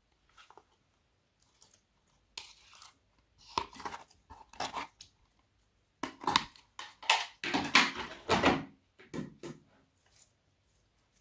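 Clear jelly slime being tipped out of a plastic tub and squeezed by hand, giving sticky, wet clicks and pops in irregular bursts. The loudest run comes about six seconds in and lasts some three seconds.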